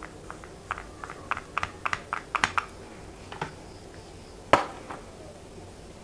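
Light plastic clicks and taps as a mini hair crimper is clamped and released on a lock of hair, coming in a quick cluster, then one louder knock about four and a half seconds in.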